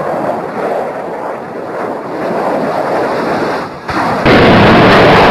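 Rough, noisy rumble of a low-flying aircraft in old footage, then about four seconds in an abrupt jump to a very loud, distorted, steady roar.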